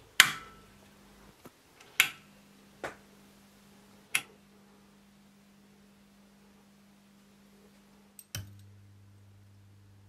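Push-button switch on a homemade EL84 push-pull tube amplifier clicking, with a sharp click just after the start and three more over the next four seconds. A faint steady hum from the amplifier sets in after the first click, and another click about eight seconds in brings in a deeper hum as it powers up.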